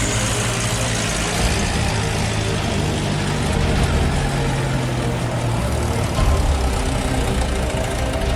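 Truck engine sound for an RC Hino truck, running steadily at low revs, with a faint rising whine near the end.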